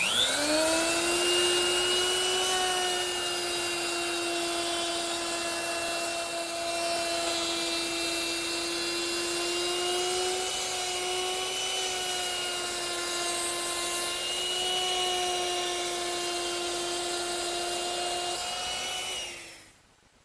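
Handheld router with a 3/8-inch roundover bit, spinning up at the start to a steady high whine as it rounds over the edges of a wooden post, its pitch wavering slightly as it cuts. It is switched off and winds down about a second before the end.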